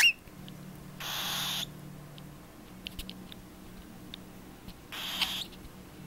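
Cockatiel chicks calling: one short, sharp rising peep right at the start, then two raspy hissing calls of about half a second each, about four seconds apart.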